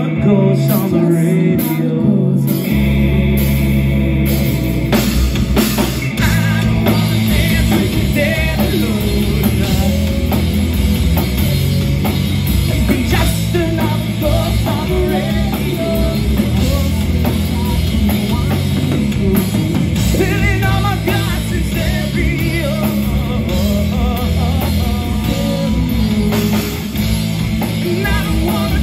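Rock band playing live: electric guitars, bass and drum kit, with a male vocalist singing over them. A heavy low end comes in about three seconds in.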